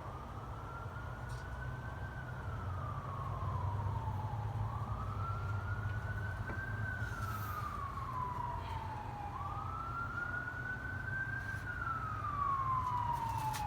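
Emergency vehicle siren in a slow wail, its pitch rising and then falling again about three times, growing a little louder. A steady low hum runs underneath.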